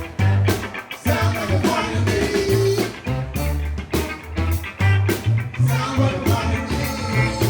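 Live funk band playing an instrumental groove: a pulsing bass line and drum kit hits on a steady beat, with horns and guitar over them.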